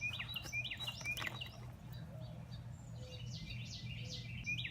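A songbird singing runs of quick, repeated two-part chirping notes, once at the start and again near the end, over a faint steady low hum.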